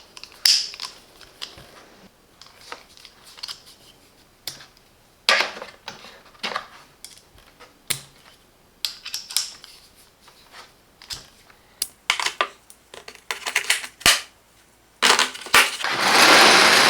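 Small metal hand tools from a socket and bit set being handled in their case: scattered clicks, taps and clatter, then a longer scraping noise near the end.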